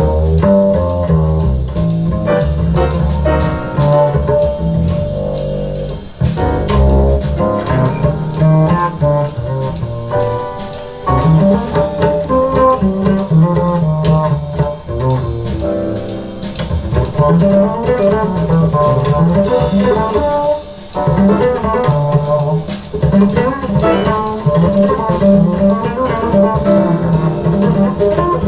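Jazz with a prominent double bass line, guitar and drums, played through a pair of floor-standing hi-fi loudspeakers.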